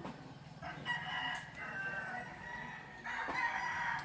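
A rooster crowing twice, each crow a long call of a second or more, the second starting about three seconds in.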